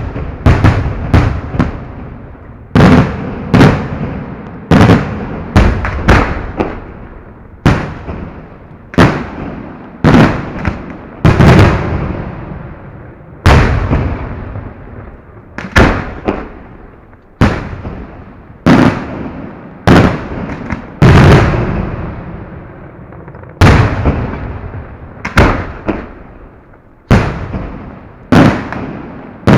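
Fireworks display heard close up: loud bangs about one to two seconds apart, each dying away in a long rumbling echo, with a quick run of bangs at the start.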